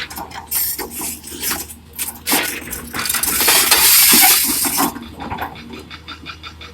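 Hard objects clattering and clinking over a low steady hum. A louder rushing clatter in the middle lasts about a second and a half.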